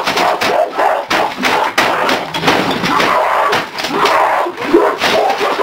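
A rapid, irregular series of hard blows: a computer keyboard being smashed against a desk.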